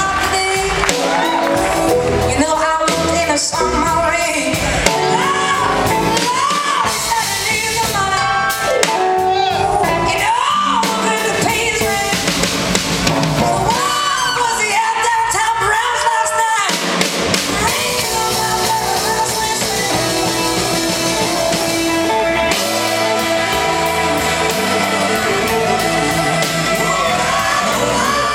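A live blues-rock band playing: a woman singing lead over electric guitars and a drum kit. About two-thirds of the way through the vocal lines give way to a steadier stretch of held notes, with a horn section playing by the end.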